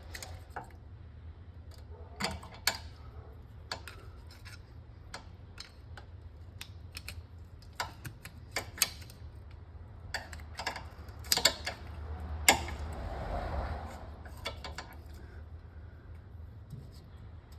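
A metal pick and the crankshaft position sensor clicking and tapping irregularly as the sensor is wiggled loose from its bore, with a few sharper clicks and a brief scraping rush about twelve seconds in. A steady low hum runs underneath.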